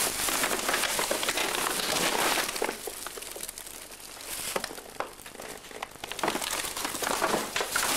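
Dry debris and litter rustling, crackling and crunching as it is pushed through and trampled. It is louder at the start, dies down for a few seconds in the middle, then picks up again near the end.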